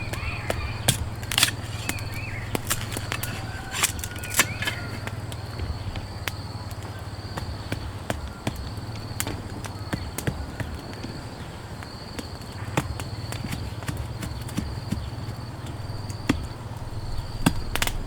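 Raindrops tapping irregularly on a tent, with an insect chirping in a steady pulse about once a second.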